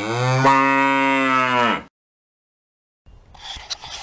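A single deep, steady, drawn-out call, an intro sound effect, lasting about two seconds before it cuts off sharply. Near the end, faint outdoor rustling and handling noises begin.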